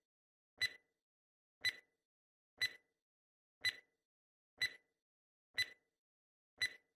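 Quiz countdown timer sound effect ticking once a second: seven short, sharp ticks, evenly spaced, as the seconds count down.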